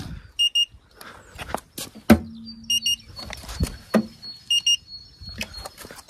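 Handheld paint-thickness gauge giving a short double beep each time its probe takes a reading on the car's paintwork, three times, between knocks and taps as the gauge is handled and set against the body panels; the loudest knock comes about two seconds in.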